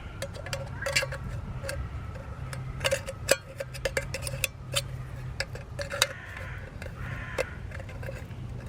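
Small knife blade cutting into a thin tin can, making irregular sharp metallic clicks and ticks over a steady low hum.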